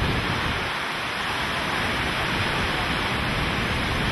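Hurricane-force wind and driving rain: a steady, loud rushing noise.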